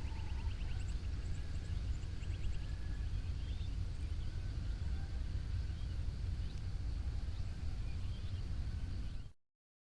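Birds chirping and trilling at dawn, including a rapid ticking trill at the start, over a steady low rumble. The sound cuts off abruptly about nine seconds in.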